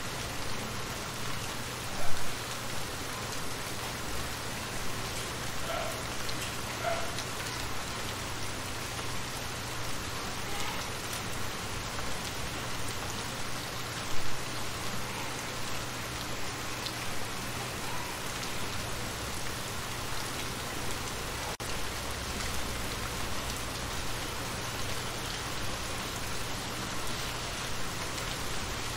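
Steady rain falling on shallow water, with many small drops pattering on the surface. Two brief louder hits stand out, about two seconds in and about halfway through.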